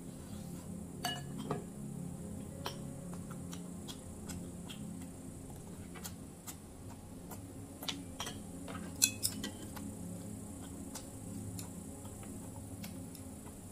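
Metal spoon and chopsticks clinking and scraping against a glass bowl and ceramic plates while eating, as irregular sharp clicks with a brief flurry about nine seconds in.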